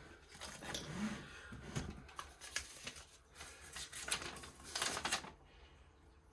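Packaging being handled and moved aside: irregular rustling with several sharp clicks and taps, loudest in a burst of rustling about four to five seconds in.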